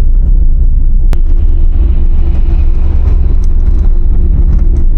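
Car driving slowly on a snow- and ice-covered road: a steady, loud low rumble of engine and tyres. A sharp click sounds about a second in.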